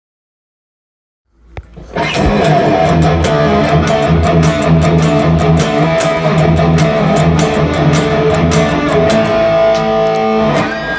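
Silence for about a second and a half, then an EVH Wolfgang Standard electric guitar played through an amplifier, jamming rock licks over a held low note.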